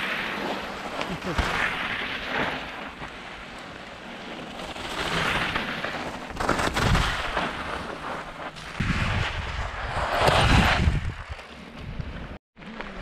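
Mountain bike tyres skidding and crunching through loose volcanic cinder as riders pass. The noise comes in several surges with a low rumble beneath.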